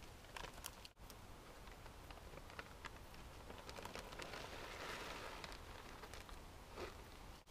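Plastic trail-meal pouch crinkling faintly as it is handled and opened, with a few light clicks early on and the crinkling strongest about four to five seconds in.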